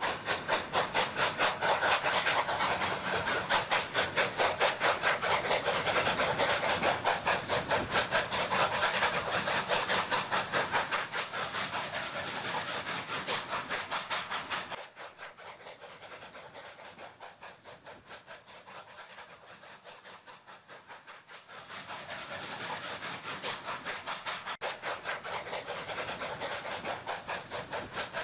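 Narrow-gauge steam locomotive working, its exhaust chuffing in a rapid, even beat with a hiss of steam. The chuffing drops away for several seconds past the middle, then grows louder again.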